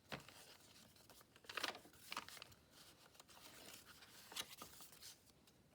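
Faint rustling and crinkling of paper sheets being handled and shifted, in a few short separate rustles, the loudest about a second and a half in.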